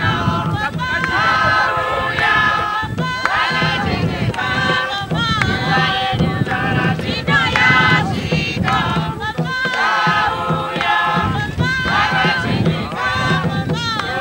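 A group of men and women singing and chanting together, with a tall wooden hand drum beaten in time underneath.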